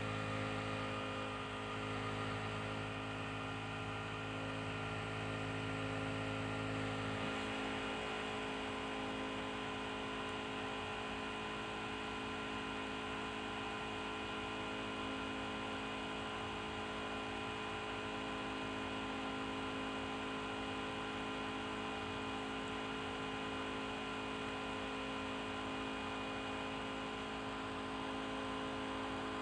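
Steady hum of running machinery in a ship's engine room, many steady tones layered together. A low part of the hum drops out about seven seconds in.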